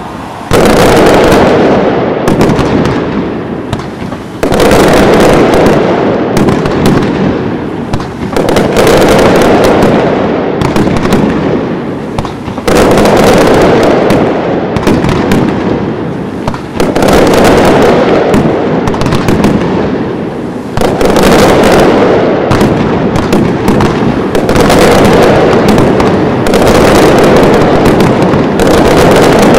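Fireworks display: a dense, continuous barrage of bangs and crackling. It surges suddenly loud about every four seconds and eases off between the surges.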